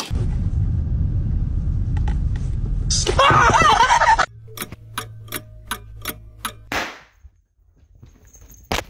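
Muffled low rumbling, then a person screaming 'Ahhh' loudly for about a second, about three seconds in. After that comes a quick run of sharp clicks over a low hum, and a single sharp crack near the end.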